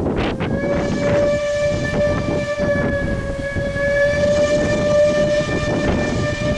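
Steam whistle of Bure Valley Railway No. 7 Spitfire, a 15-inch-gauge steam locomotive, sounding one long, steady, several-pitched blast that starts about half a second in, given for a level crossing. Wind rumbles on the microphone underneath.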